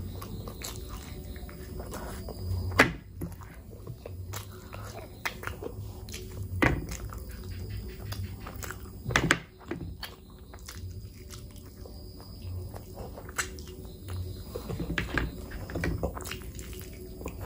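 Close-miked eating sounds: chewing and wet mouth noises with many small clicks. Three sharper, louder smacks come about three, seven and nine seconds in.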